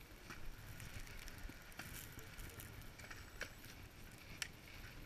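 Faint outdoor mountain ambience: a low rumble of wind on the microphone with scattered small clicks and taps.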